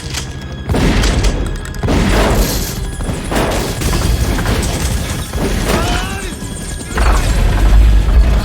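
Action-film soundtrack: music under a run of heavy crashes and booms, each followed by a deep rumble, with a squeal about six seconds in and the loudest crash near the end.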